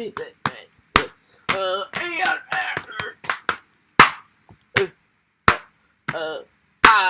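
Cartoon fight sound effects: a rapid, uneven run of sharp slaps and hits, the loudest about four seconds in, mixed with short cartoon voice cries.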